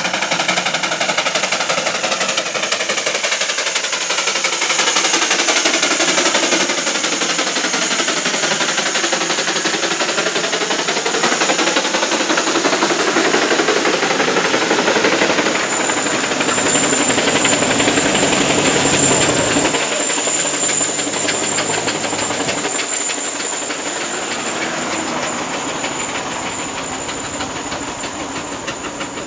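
Steam traction engine working hard up a hill, its exhaust beating in a fast, even chuffing rhythm that sweeps past close by in the first half and grows a little fainter near the end. A thin, steady high tone joins in about halfway.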